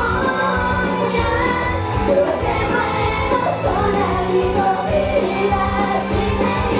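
Idol pop song: a woman's voice sings a melody over a loud band backing track with a steady beat.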